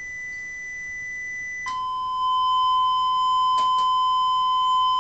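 Square-wave test tone from a signal generator, played through the AWA Radiola 528MA's valve audio amplifier and loudspeaker. A steady high tone drops about an octave to a 1 kHz square-wave tone nearly two seconds in and gets louder just after, with two faint clicks past the middle.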